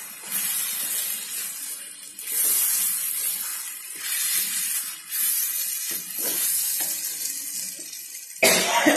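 Ground chilli pickle paste sizzling as it fries in a non-stick pan, the hiss swelling with each turn of a wooden spatula; the paste is being cooked down to drive off its remaining water. A short louder sound comes near the end.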